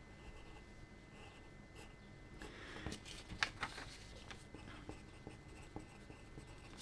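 Pencil drawing on a sheet of paper on a tabletop: faint scratching strokes, with a louder run of strokes about three seconds in.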